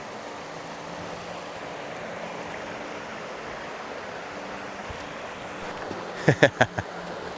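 Mountain stream rushing steadily over turbulent water. Near the end, four loud, short sounds come in quick succession.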